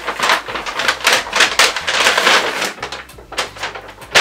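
Paper and packaging rustling and crinkling as a purchase is handled and drawn out of its shopping bag, in quick irregular crackles that thin out toward the end.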